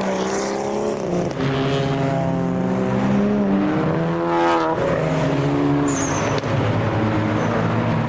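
Modified cars driving past one after another, their engines running, with one revving sharply upward as it accelerates away about four seconds in.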